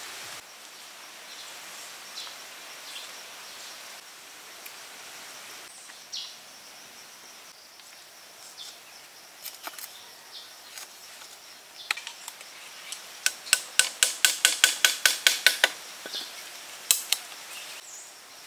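Bamboo fence stakes being knocked into sandy ground: a quick, evenly paced run of about a dozen sharp knocks about two-thirds of the way in, then a single knock a second later, over a few lighter taps and clicks.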